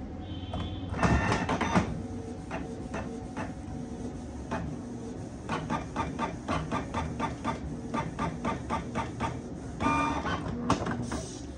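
Canon PIXMA G1020 inkjet printer printing a test page. There is a louder burst of motor noise about a second in, then regular clicks about three a second as it prints, and another burst near the end as the printed sheet comes out.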